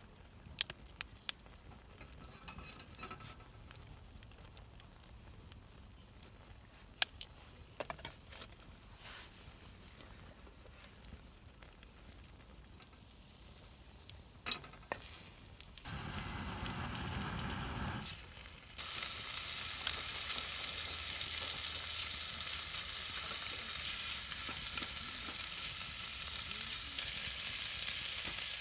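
Food frying in a hot pan over a fire-pit stand. There are scattered small clicks at first and a brief low rumble about 16 seconds in; then a loud steady sizzle starts suddenly about 19 seconds in, as food goes into the pan.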